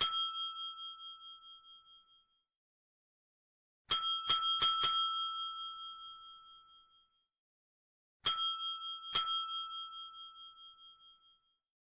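Desk bell (service bell) struck repeatedly, each ding ringing out and fading over about two seconds. There is one ding, then four quick dings about four seconds in, then two more about a second apart.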